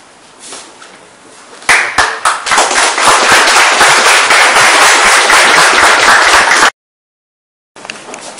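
Audience applauding: clapping breaks out about two seconds in, quickly becomes loud, steady applause of many hands, and cuts off suddenly near the end.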